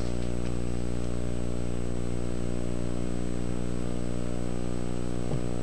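Steady electrical hum with many overtones, unchanging in pitch and level, the kind of buzz carried on an old tape transfer.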